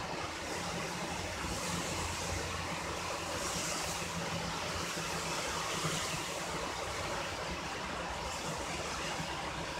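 Steady rushing background noise, with a faint low hum through roughly the first half.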